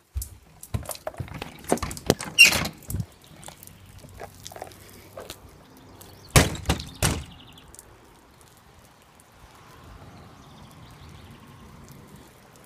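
Knocks and clatters of a house door being opened and a glass storm door banging, with handling noise, loudest about two and a half seconds in and again in a quick run of bangs around six and a half seconds in; then only a quiet steady outdoor background.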